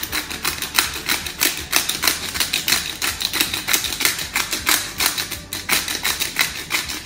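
Hand-twisted pepper mill grinding black pepper, a rapid run of ratcheting clicks at about five or six a second.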